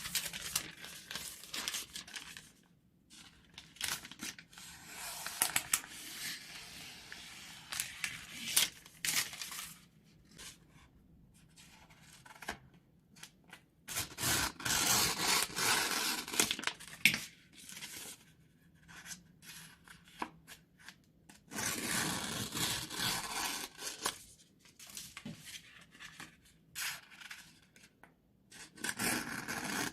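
New scissors sliding through sheets of paper and plastic film in long single-motion cuts: several stretches of crisp hiss, the longest about four seconds, with short clicks between them.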